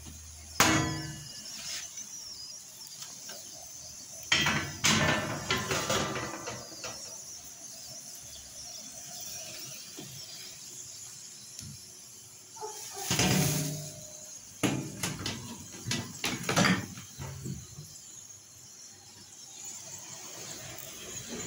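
Wooden spatula scraping and knocking against a non-stick pan as a flatbread is shifted on it, in scattered short bursts with quieter stretches between.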